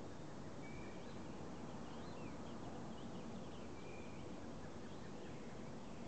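Faint chirps and calls of small birds, including two short level whistles, one about a second in and one about four seconds in, over steady low background noise.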